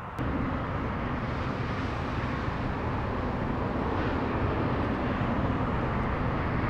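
Southern Railway Schools class 4-4-0 steam locomotive No. 925 Cheltenham working as it approaches, a steady exhaust roar that grows slightly louder.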